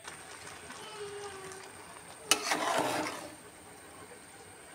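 A metal spoon in a cooking pot: a sharp clink about halfway in, followed by about a second of scraping and stirring.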